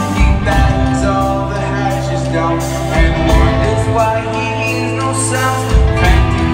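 Rock band playing live: a male lead voice singing over electric guitars, bass and drums, with sustained chords and a few heavier drum hits about three seconds in and near the end.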